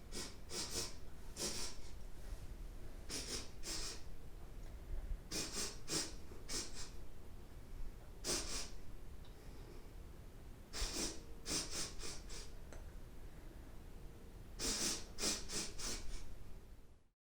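A person sniffing through the nose, smelling something: short quick sniffs in clusters of two to five, with pauses of a second or two between clusters. The sound cuts off abruptly near the end.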